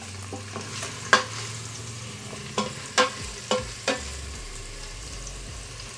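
Sliced onions sizzling in hot oil in the stainless steel inner pot of a Geek Robocook electric pressure cooker on sauté. They are stirred with a plastic spatula that knocks and scrapes against the pot about five times.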